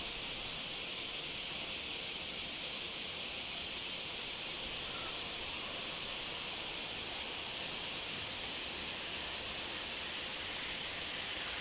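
A dense chorus of summer cicadas: a steady, high, sizzling hiss that neither rises nor falls.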